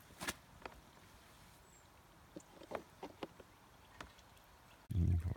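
Wet, freshly rinsed sheep's wool lifted out of a plastic tub of rinse water, with scattered splashes and drips. Near the end, a short, loud low rumble.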